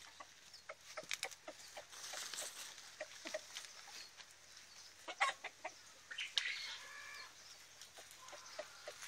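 Chickens clucking: many short, sharp calls scattered through, with one brief longer pitched call about six and a half seconds in.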